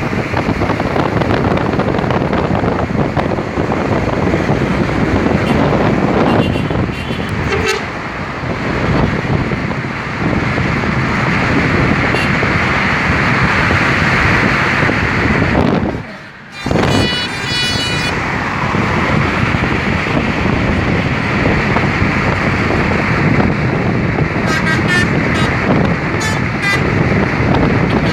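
Bus 'telolet' musical horn sounding short tuneful notes over heavy wind and road noise. A few notes come about a quarter of the way in, a loud chord about two-thirds through, and a run of quick notes near the end.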